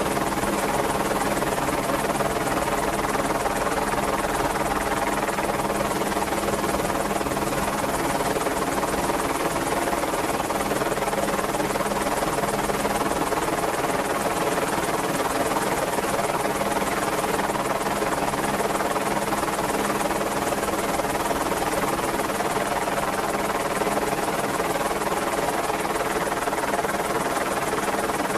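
Merlin helicopter running steadily, its rotor and turbine engines giving an even, unchanging hum of many tones with no sudden sounds.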